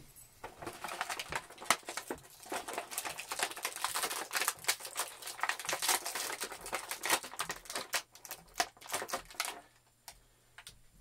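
Quick, irregular plastic clicks and rustles as a plastic action figure and its packaging are handled. They start about half a second in and stop shortly before the end.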